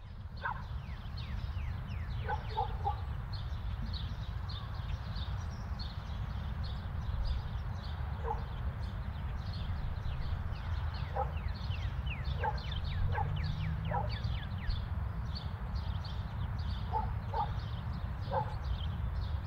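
Animal calls: many quick, high, falling chirps throughout, with a few short lower calls, some in pairs, over a steady low rumble.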